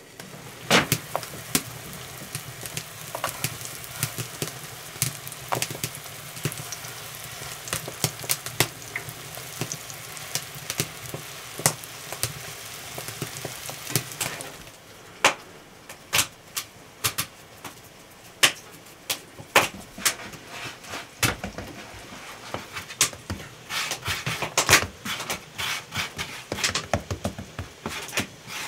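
Dough pies sizzling in hot fat in a cast-iron frying pan as they are laid in one by one, with sharp crackles and pops. About halfway through the sizzling stops, leaving scattered taps and knocks of hands working dough on a wooden board.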